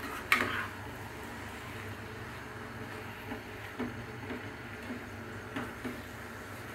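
Spatula stirring and scraping cooking mushrooms in a frying pan: one sharp knock against the pan about a third of a second in, then soft scrapes every half second or so later on, over a steady low hum.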